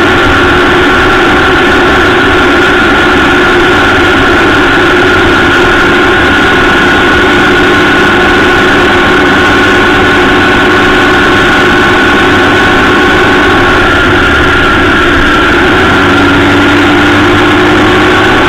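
Honda Gold Wing motorcycle riding at a steady road speed, its engine running under a steady rush of wind and tyre noise on the bike-mounted microphone. The engine note rises a little near the end.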